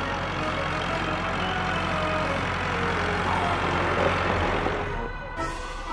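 Cartoon truck engine sound effect running steadily, then cutting off about five seconds in.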